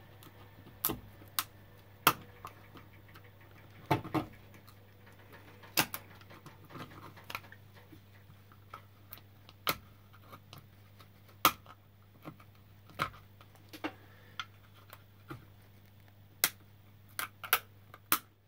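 Irregular sharp clicks and taps, roughly one a second, from a plastic LED spotlight housing and a small hand tool being handled on a workbench, over a steady low hum.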